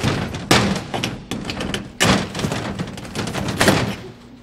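A panelled door being shaken and worked at its handle to force it open, with repeated thumps and rattles and several sharp knocks, the strongest about half a second in and at two seconds.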